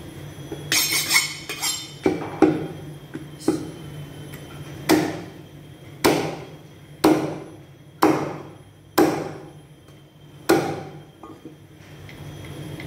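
Heavy steel cleaver chopping mutton into small pieces on a round wooden chopping block: a series of sharp chops, mostly about a second apart, each with a short ring.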